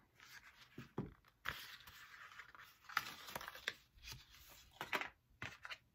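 Paper wrapping and a cardboard box being handled: rustling and crinkling with several sharper crackles, the loudest about halfway through and again near the end.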